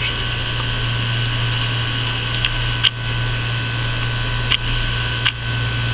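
Steady machine hum with thin high whining tones, the running noise of a fan or air conditioner or of the camera itself, broken by four sharp clicks from the compact camera being handled as it zooms out.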